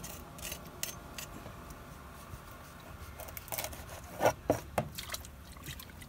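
Large knife scraping and cutting a freshwater fish on a wooden board: light scraping clicks, then a quick run of sharp knocks about four seconds in, the loudest at the blade striking the board.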